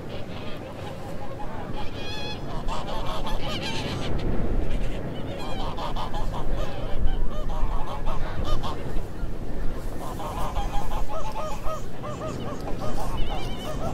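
A large flock of snow geese honking: many overlapping calls at once, a continuous din of short yelping honks over a low rumble.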